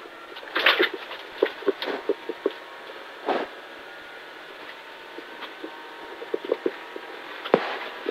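Rally car at speed on a gravel stage, heard from inside the cabin: a steady muffled running sound broken by irregular sharp knocks and clatters.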